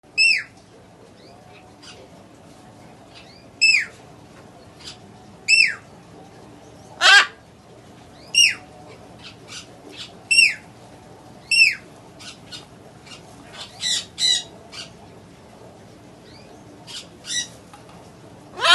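Young Buffon's macaws (great green macaws) squawking: about a dozen short, harsh calls, each falling in pitch, every one to two seconds, with a few softer calls in between.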